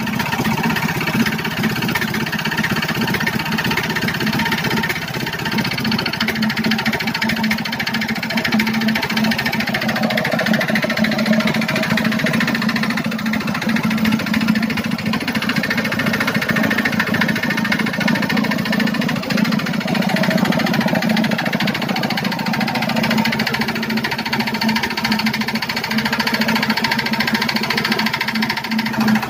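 Kirloskar Varsha single-cylinder air-cooled diesel engine running steadily. The mechanic has diagnosed a worn-out cylinder bore and piston.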